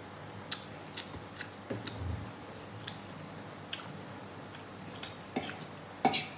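Close-miked eating of noodles: scattered short, sharp clicks and smacks from chewing. There is a soft low thud about two seconds in, and a stronger clink near the end as the fork works in the metal plate.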